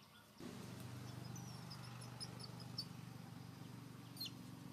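A steady low hum comes in suddenly about half a second in. Short high chirps sound over it, and a single quick falling squeak comes near the end.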